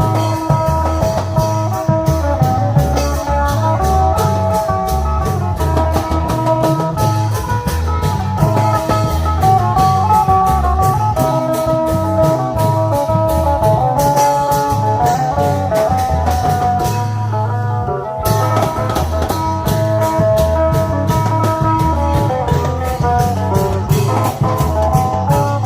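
Isan long-drum (klong yao) band music: drums and clattering percussion keep a fast, steady beat under an amplified plucked-string melody. The high clattering strokes drop out briefly about two-thirds of the way through, then come back.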